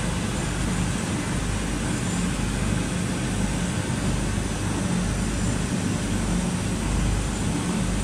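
Livestock manure solid-liquid separator running, a steady mechanical drone with a low hum underneath.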